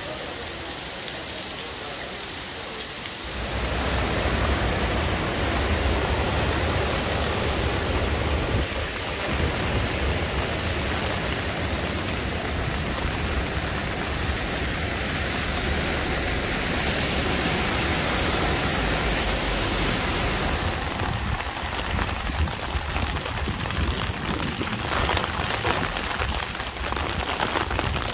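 Heavy rain pouring onto streets and standing floodwater, a steady hiss. About three seconds in it grows louder, with a low rumble underneath.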